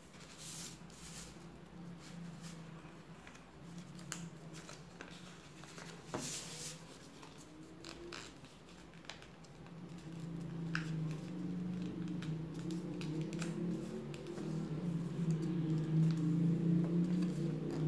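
A sheet of paper being folded and creased by hand on a table: scattered crinkles, swipes and taps as fingers press down the folds. A low steady hum underneath grows louder over the second half.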